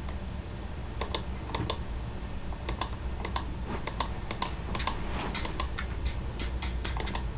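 Typing on a computer keyboard: irregular key clicks, sometimes in quick runs, over a steady low hum.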